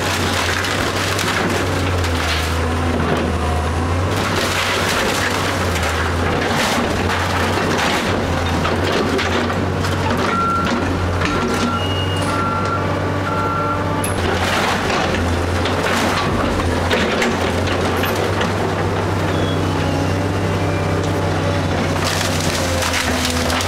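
House being torn down by heavy machinery: a diesel engine runs steadily under continuous cracking, crushing and splintering of the wooden house frame. A short series of high beeps sounds about halfway through.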